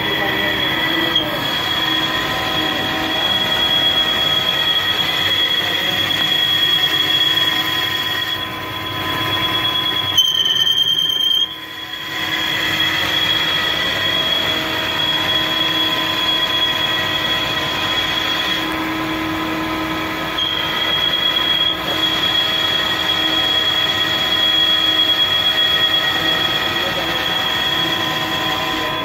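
Mazak CNC lathe turning a crankshaft: the spindle and cut run steadily with a high-pitched whine over machine noise, with a brief change in tone about ten seconds in.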